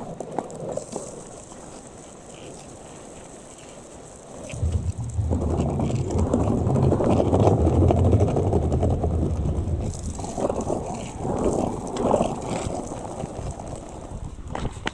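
Surfskate wheels rolling over city pavement: a rough, low rumble that swells loudly about four and a half seconds in, then eases into weaker swells after about ten seconds.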